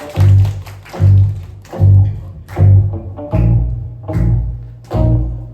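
Electric bass guitar playing a short solo riff of deep, sharply attacked notes, a new note roughly every second.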